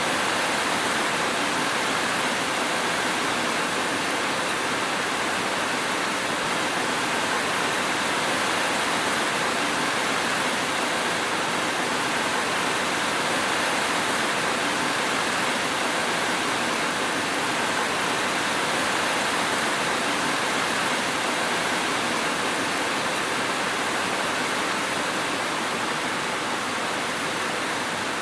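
Steady rain falling, a dense even hiss that holds the same level throughout.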